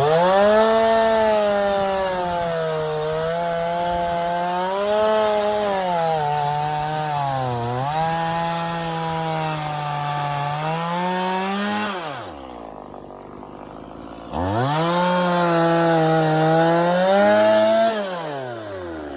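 Stihl MS170 two-stroke chainsaw cutting through a pine log, its engine pitch sagging and recovering as it loads up in the cut. About twelve seconds in the engine drops away, then revs back up about two seconds later and cuts on before winding down near the end. The saw is bogging in the cut, which the owner puts down to running low on gas.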